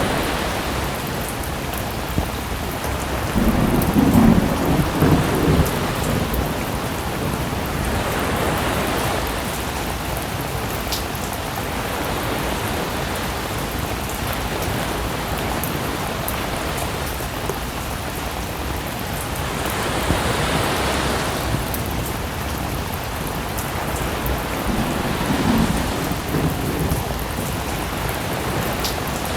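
Steady rain with sea waves washing in, and low rolls of thunder twice: one about four seconds in, and a softer one near the end.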